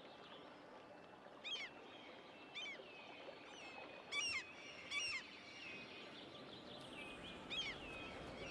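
Birds calling in short, high chirps, a few seconds apart, over a steady hiss of outdoor background noise.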